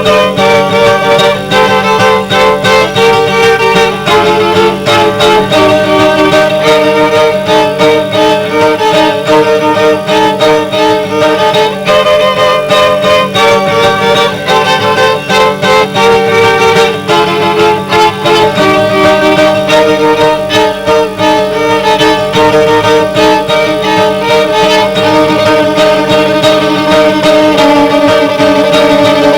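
Violin and guitar duo playing fast, busy jazz-fusion lines over a steady accompaniment.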